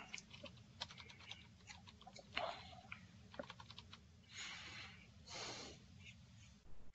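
Faint typing on a computer keyboard, with irregular key clicks in quick succession for the first few seconds, then two soft, short rushes of noise.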